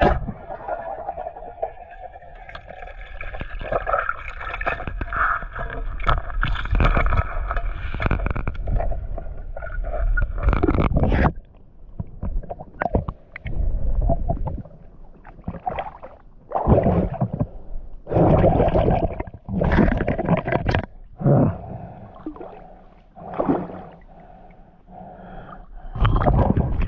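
Water sounds picked up by an underwater camera during spearfishing: muffled gurgling and rushing water. About halfway through it breaks up into a series of short bursts of splashing and water movement.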